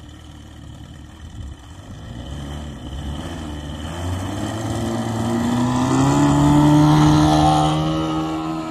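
Large RC Carbon Cub model plane's 3W-140B4 four-cylinder two-stroke petrol engine throttling up for the takeoff run. The engine note climbs in pitch over a few seconds and grows louder as the plane lifts off, loudest about seven seconds in, then eases a little near the end.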